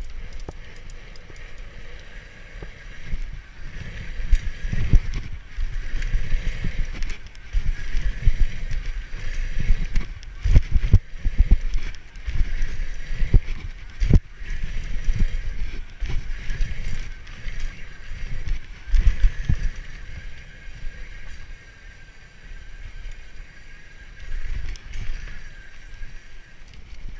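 BMX bike ridden over dirt jumps, heard from a handlebar-mounted camera: tyres rumbling on dirt, wind buffeting the microphone in uneven surges, and several sharp knocks and rattles as the bike lands and jolts.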